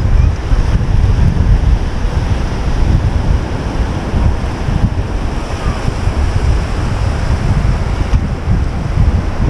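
Wind buffeting the microphone in gusts over surf washing on a sandy beach.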